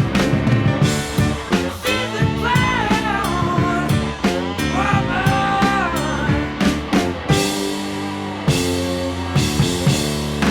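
Hard rock band playing: electric guitar, bass and drums, with a lead line of bending, held notes twice over the beat.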